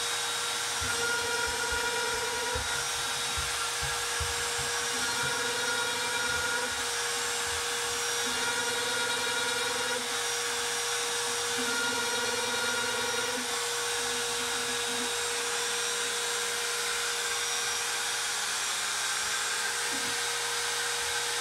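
Trim router on a Shapeoko XL CNC machine running with a steady whine while it mills dowel holes in a pine board. The cutting sound wavers in repeating stretches of about a second and a half, with low knocks in the first few seconds. Near the end only the steady whine is left.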